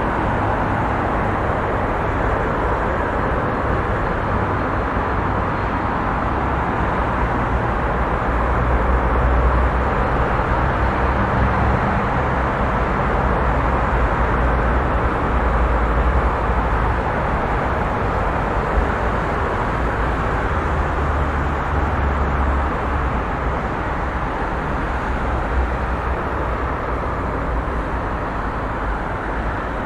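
Busy city street traffic: a steady wash of passing cars and tyre noise. A deeper low rumble swells for several seconds about a third of the way in and again briefly past two-thirds.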